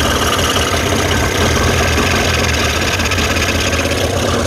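Evinrude 40-horsepower outboard motor running steadily on flushing muffs while fogging oil is sprayed into its carburetors, which makes it start to slow down a little.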